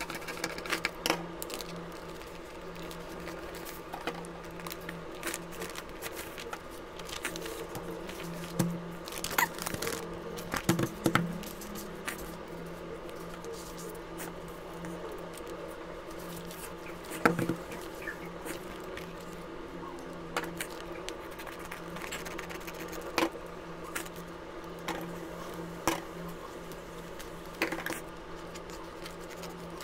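Sheets of drawing paper rustling and crinkling, with snips of small scissors and scattered light clicks and taps as the paper is cut and handled on a table. A steady low hum runs underneath.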